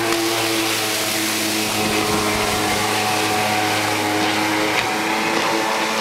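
Boat engine running at one steady pitch over a steady hiss of water and spray.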